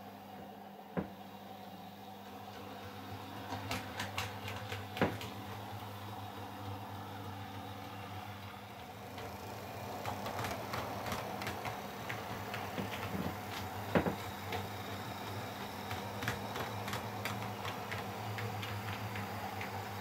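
Model train running on the layout: a steady electric motor hum with wheels clicking over the rail joints, the clicks coming in quick runs with a few sharper ones.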